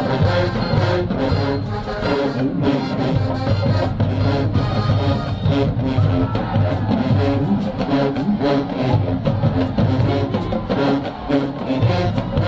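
Marching band playing a hip-hop hit, with a steady drumbeat under horns.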